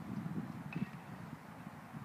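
Low outdoor background rumble with a light click about three-quarters of a second in; no bat strike.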